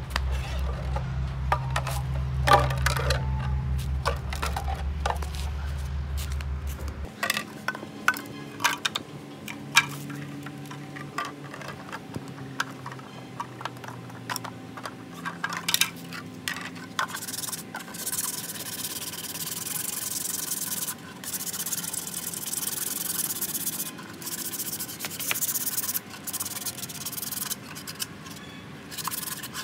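3D-printed plastic speaker-enclosure parts being handled, rubbed and set down, with scattered clicks and knocks and a rubbing hiss through the second half. A steady low hum runs for the first seven seconds or so and cuts off suddenly.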